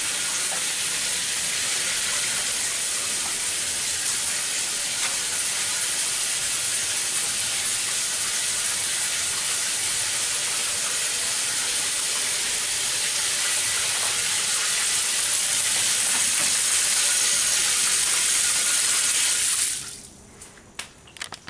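Steady hiss of falling water that stops abruptly near the end, followed by a few faint clicks.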